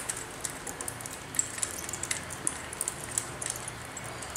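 Scattered small clicks and taps as fingers handle the metal handle clamp and its bolts on a brush cutter's aluminium shaft.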